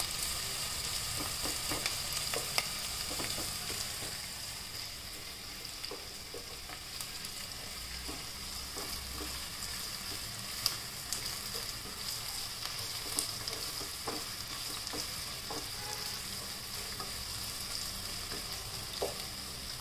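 Sliced onions sizzling steadily in plenty of hot oil in a pan, frying toward brown, with a wooden spatula now and then scraping and tapping against the pan as they are stirred.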